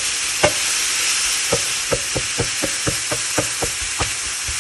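Ground pork and sausage meat sizzling in a non-stick frying pan, with a wooden spatula breaking it up and knocking against the pan about three times a second.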